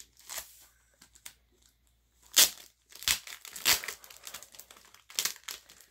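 Clear plastic shrink-wrap on an album being pulled and torn open by hand: crinkling and tearing in separate bursts, with the loudest, sharpest one a little under halfway through.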